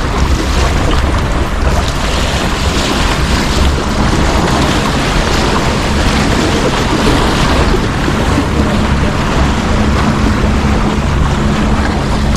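Steady wind buffeting the microphone over the wash of sea water against a harbour breakwater, with a faint steady low hum underneath.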